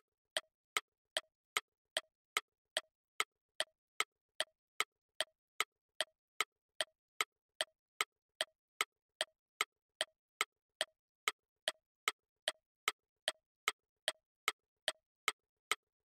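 Clock-ticking sound effect marking a countdown timer as it runs down: sharp, even ticks about two and a half a second.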